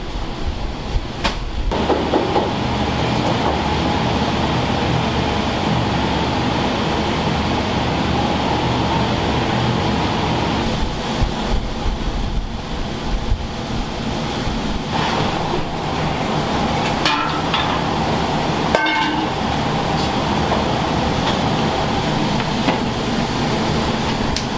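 Steady noise of a working udon kitchen, an even rumbling roar, with a few sharp clatters of utensils about a second in and again near the end.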